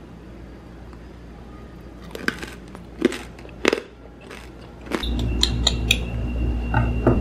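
Crisp, deep-fried pork belly skin crunching and crackling as a piece is broken apart, in four short, sharp crunches. Background music comes in about five seconds in.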